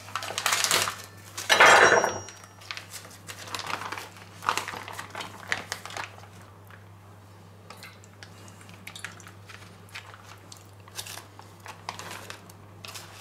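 Plastic vacuum-seal bag being slit open with a knife and crinkled while handled, with the loudest rustle about two seconds in, followed by lighter crinkles and clicks as the sous-vide cooking juices are drained from the bag into a stainless steel bowl.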